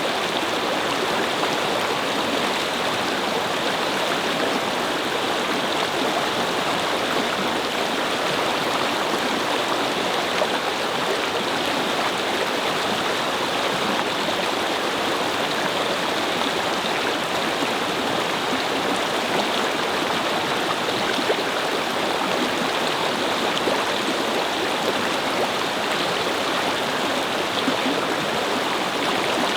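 Shallow brook babbling and splashing over stones, a steady rush of flowing water.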